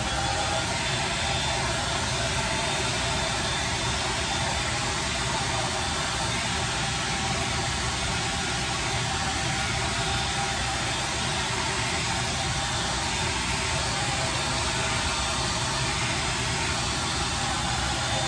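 Handheld hair dryer running steadily while drying wet hair: a constant rush of air over a motor hum.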